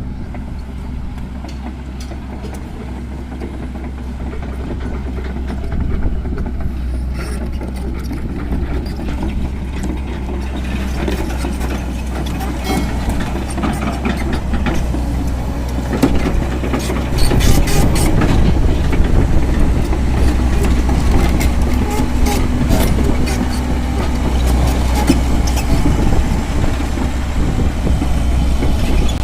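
Heavy excavator's diesel engine running steadily, with metallic clanking and clatter building up from about ten seconds in and louder from about seventeen seconds, typical of steel tracks moving.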